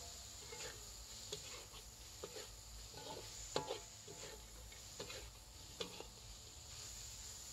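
Spatula scraping and tapping across a wide metal wok as a spice paste is stir-fried, a stroke about once a second, over a faint steady hiss.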